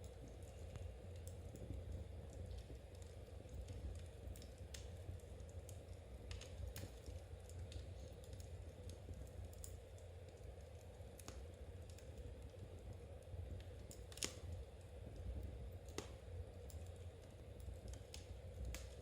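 Knitting needles clicking irregularly as stitches are worked, over a steady low hum.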